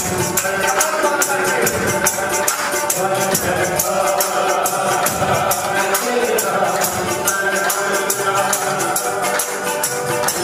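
Live worship singing with a hand-held shaker rattling out a quick, steady beat and hand clapping along with it.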